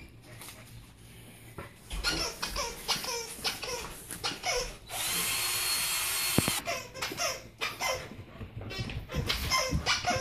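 A corgi chewing a plush squeaky toy, setting off a rapid run of short squeaks, with one longer, hissing squeak about halfway through.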